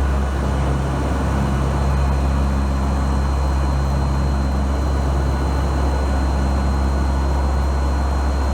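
Steady drone of a NOAA P-3 Orion hurricane hunter's four turboprop engines, with a deep rumble underneath and a thin high whine held on one note.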